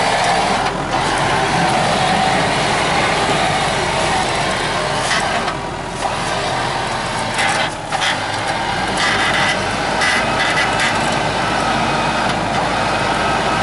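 Mitsubishi Pajero engine running under throttle as the stuck SUV tries to pull out of mud, its wheels spinning. The steady engine noise dips briefly a few times.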